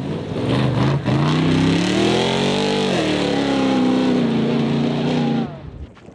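Rally car engine accelerating hard, its pitch climbing with a short break for a gear change about a second in, then dropping near the middle and holding lower until it cuts off suddenly near the end.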